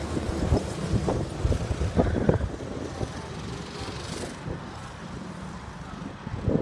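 Wind buffeting the microphone in irregular low gusts, heaviest in the first couple of seconds, over a faint go-kart engine running somewhere out on the track.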